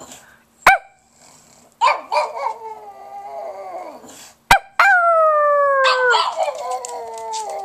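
Pug howling in long, wavering wails, the last and loudest one sliding slowly down in pitch, with two short, sharp yips in between.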